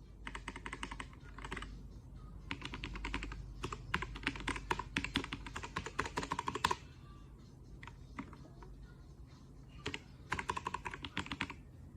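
Fast typing on a ZIYOU K3 mechanical keyboard with linear red switches: three runs of rapid keystrokes with short pauses and a few single keypresses between them. A steady low hum sits underneath.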